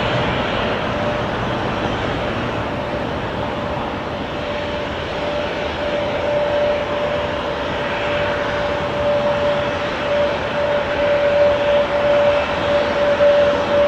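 Jet airliner engines running on the runway: a steady rushing noise with a high whine that grows stronger through the second half, getting a little louder near the end.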